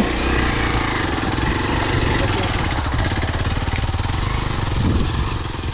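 Single-cylinder 200 cc motorcycle engine running hard under load as the bike climbs a steep off-road slope.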